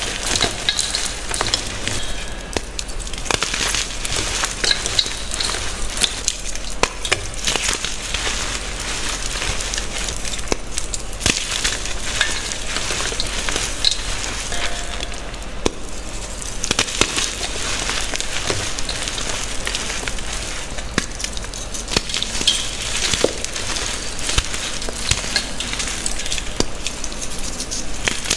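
Bare hands crushing and squeezing blocks of reformed gym chalk into powder: a dense, steady crunching and crackling made of many small clicks.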